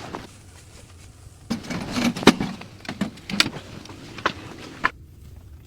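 A run of about seven irregular knocks and scuffs, close to the microphone, over a faint noise haze, with the sound dropping out briefly near the end.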